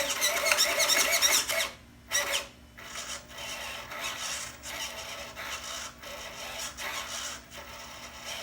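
RC snowmobile's steering servo whining in short bursts as it swings the skis back and forth. From about three seconds in, a steadier, quieter whir follows as the electric drive turns the track slowly on the bench.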